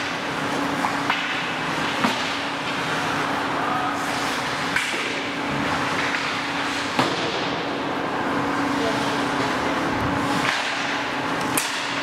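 Ice hockey play: sharp clacks of sticks striking the puck or boards, four times, over the steady noise of the rink and a low hum.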